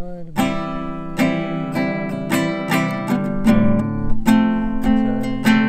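Acoustic guitar strummed by hand, chords ringing in an even rhythm of about two strums a second.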